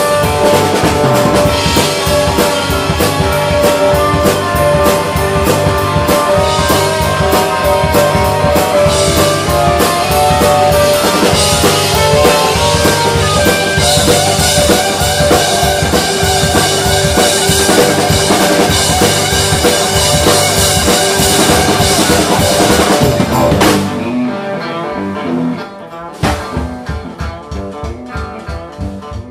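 Live rock band playing an instrumental passage on stage keyboard, electric guitar and drum kit, with no singing. About five seconds before the end the band drops down, leaving mostly spaced drum hits over quieter playing.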